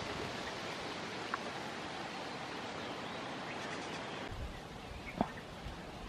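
Steady outdoor background hiss with two brief faint chirps or clicks, one near the start and one toward the end. The background drops and changes character a little past four seconds in.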